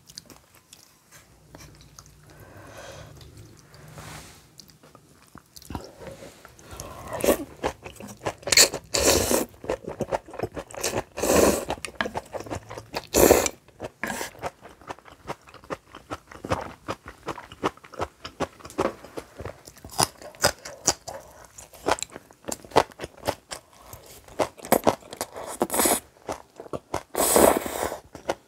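Close-miked chewing and crunching on spicy kimchi: soft for the first few seconds, then dense, crisp crunches with several loud bites.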